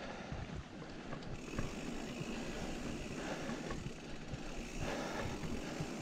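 Mountain bike rolling along a dirt singletrack: steady tyre noise on the dirt with scattered small clicks and rattles from the bike.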